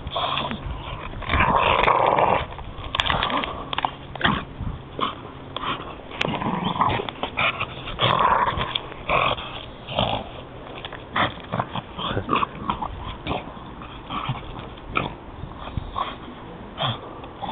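Staffordshire bull terrier gnawing and tearing at a wooden log: a run of sharp cracks and snaps of splintering wood mixed with the dog's growls and breathing, loudest about two seconds in and again around eight seconds.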